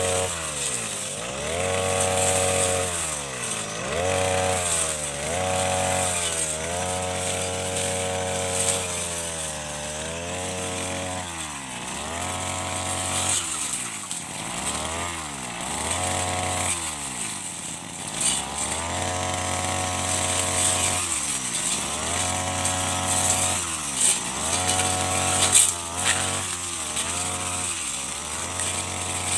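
Bladed brush cutter's engine revving up, holding and dropping back to idle over and over, about every one and a half to two seconds, as it cuts through grass and shrubs. Near the end the revs come in shorter, quicker bursts, with a sharp knock among them.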